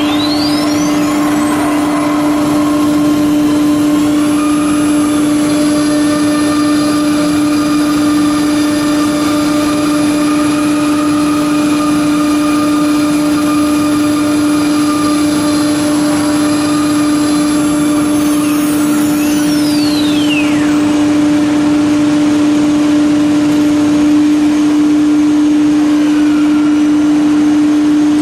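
A CNC router's spindle routes grooves into a wood panel: a steady motor whine with a cutting hiss over it. A higher whine sweeps up near the start and sweeps back down about two-thirds of the way through.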